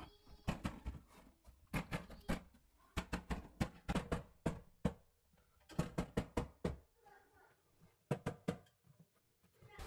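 Quick knocks and taps in about five short bursts as a window frame is pushed and tapped into its opening.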